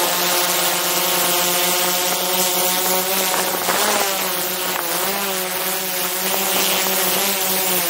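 Multirotor drone's propellers and motors buzzing steadily in flight, heard close up from a camera mounted on the drone. The pitch wavers briefly several times as the motors adjust their speed.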